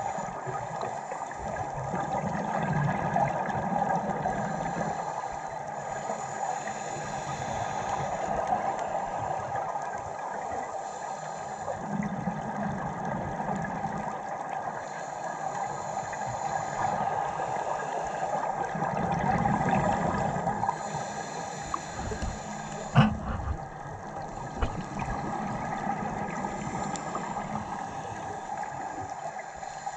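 Underwater sound through a camera's housing: a scuba diver's regulator breathing, with slow swells of exhaled bubbles every several seconds over a steady hum. One sharp knock about 23 seconds in.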